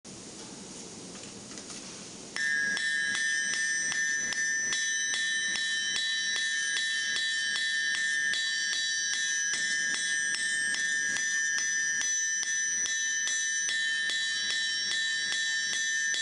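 Hand hammer striking red-hot steel plate on an anvil at about three blows a second, the anvil ringing on between blows. For the first couple of seconds there is only a low steady rushing noise before the hammering starts.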